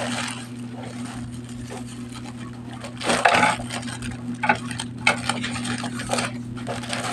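Irregular rustling, scraping and light knocks of a parcel being unpacked by hand, loudest about three seconds in, over a steady low hum.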